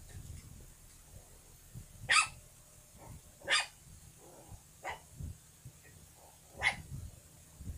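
Small puppy barking: four short, sharp yaps about a second or more apart, the first the loudest, with a few soft thumps in between.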